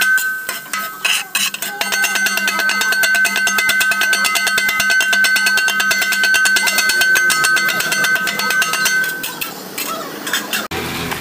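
Two flat metal blades chopping kothu parotta on a steel griddle: rapid, rhythmic metallic clanging with a ringing tone. The clanging stops near the end.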